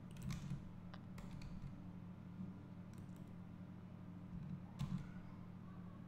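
A few scattered clicks of a computer keyboard and mouse, the loudest near five seconds in, over a steady low hum.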